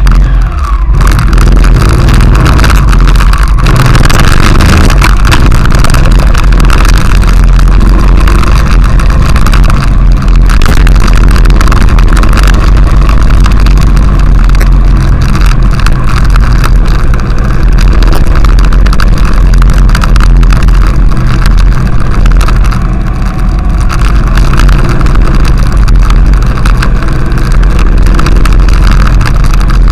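Honda XRV750 Africa Twin V-twin engine running under way, mixed with loud, steady wind rush on the camera microphone from the motorcycle's speed.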